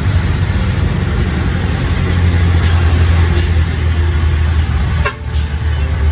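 Diesel engine of a coach bus passing close by, a steady low hum, over the hiss of heavy rain and tyres on the wet road. A brief click about five seconds in.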